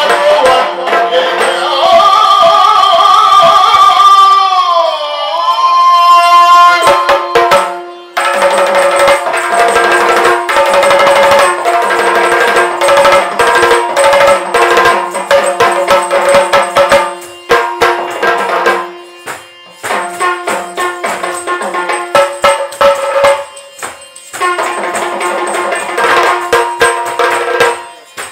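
Yakshagana background ensemble: chande and maddale drums beating a fast dance rhythm over a steady drone. A long high note slides down about five seconds in, and the drumming breaks off briefly a few times.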